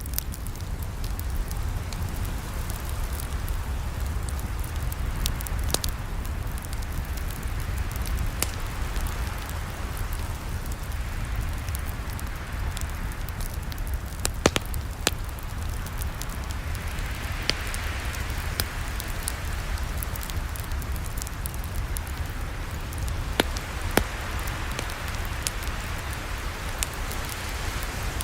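Campfire burning: scattered sharp pops and crackles over a steady low rumble and hiss, the hiss swelling a little about two-thirds of the way in.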